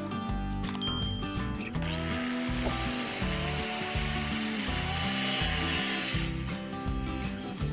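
A power tool working on a workpiece for about four seconds, starting about two seconds in, over background music with a steady beat.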